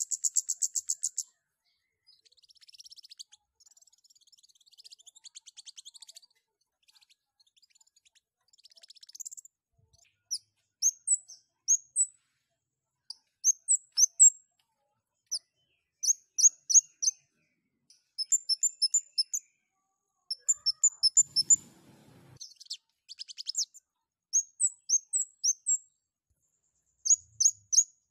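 Scarlet-headed flowerpecker (kemade) calling: a fast high trill at the start, then softer twittering, then sharp high chips in quick groups of three to six, repeated every second or two. The bird is in full voice and in breeding condition. A brief low rustle comes about two-thirds of the way through.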